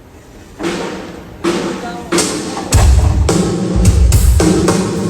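Drum kit being sound-checked: three single sharp snare drum hits with a ringing tone, then bass drum and snare come in together as the drummer starts a steady beat.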